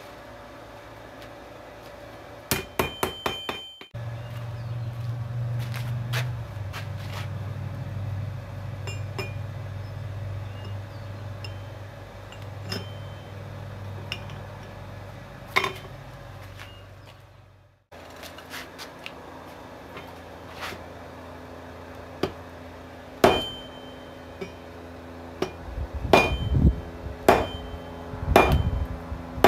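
Hammer blows on a railroad spike on a 66 lb anvil, the anvil ringing after each strike. A quick run of about six blows comes a few seconds in, and scattered single blows come in the second half. A steady low hum sits between the blows, and the sound breaks off abruptly twice.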